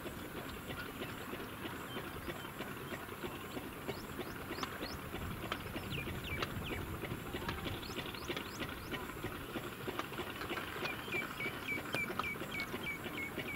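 Birds chirping with short high notes, and a quick run of repeated calls, about four a second, in the last few seconds. Underneath is a steady low background noise.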